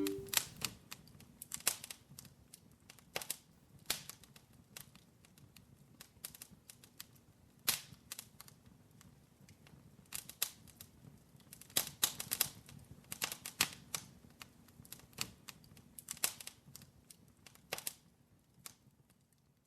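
Wood fire crackling: irregular sharp pops and snaps, sometimes in quick clusters, over a faint low hum. They die away shortly before the end.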